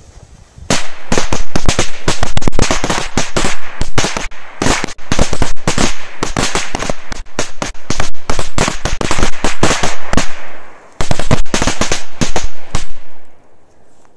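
Large machine-gun-belt firecracker going off: a long, dense string of rapid loud bangs, several a second, starting about a second in. The bangs break off briefly about ten seconds in, then a final burst follows and they stop shortly before the end.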